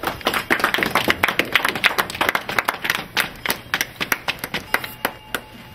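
A small group of people applauding. Many separate hand claps come thick at first, then thin out and die away near the end.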